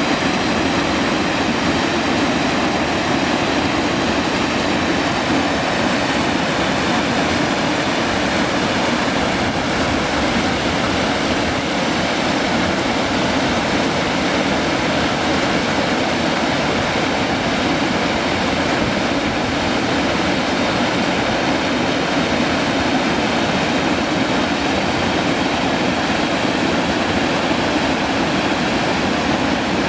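Red Rock Falls, a waterfall cascading over rock ledges into a pool, giving a loud, steady rush of falling water.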